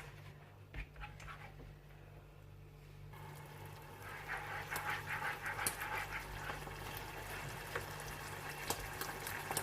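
Creamy cheese sauce with chicken simmering in a pan on low heat, bubbling and softly crackling. The bubbling rises about three seconds in, over a steady low hum.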